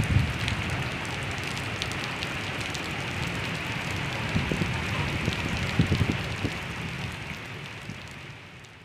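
Heavy rain falling steadily onto a flooded street: a continuous hiss of rain on standing water, dotted with individual drop splashes. It fades away near the end.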